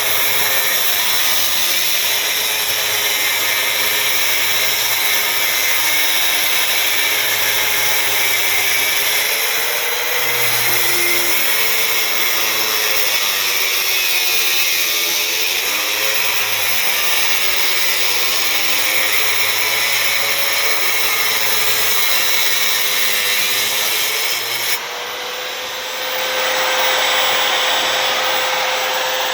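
A power tool or motorised machine running continuously, its pitch wavering up and down; about 25 s in the sound shifts to a steadier single tone.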